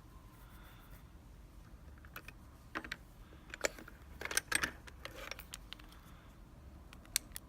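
Scattered small metallic clicks and light rattles from handling a picked Abus/Brady 71/40 lockout padlock and the lockpicking tools in it, a few clustered close together midway.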